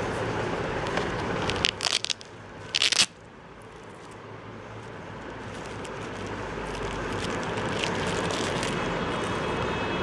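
Handling noise from a monocular and its soft mesh case being picked up and turned over: short sharp crackling bursts about two and three seconds in, over a steady background rumble.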